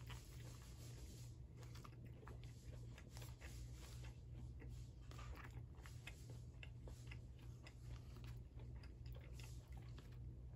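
Faint eating sounds: a metal spoon and a plastic fork scooping rice in a plastic takeout container, with chewing, a scatter of small irregular clicks and scrapes.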